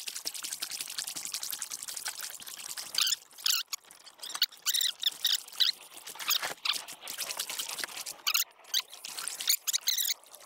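Canoe paddle strokes in calm river water: the blade dipping and pulling with splashes and water running and dripping off it, in repeated strokes every second or two.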